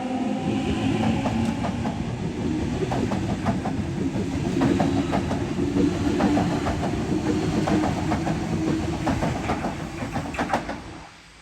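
Electric suburban passenger train moving along the platform, its wheels clicking rapidly over the rail joints over a steady hum. The sound cuts away sharply near the end.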